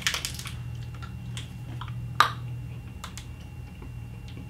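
A small candy gum wrapper crinkling as it is opened, then a few scattered small clicks, the loudest about two seconds in.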